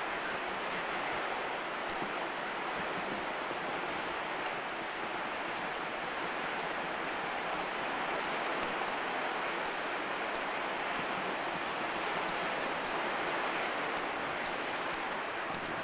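Sea surf washing steadily, an even rushing noise with no single wave break standing out.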